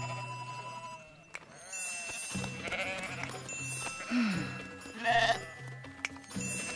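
Cartoon sheep bleating, with two wavering bleats about three and five seconds in, over light background music.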